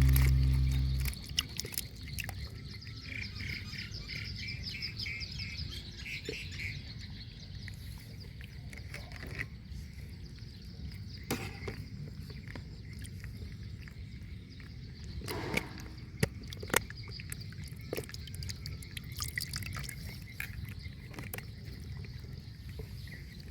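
Birds chirping over quiet outdoor background noise, with a few sharp clicks or knocks. Background music fades out in the first second.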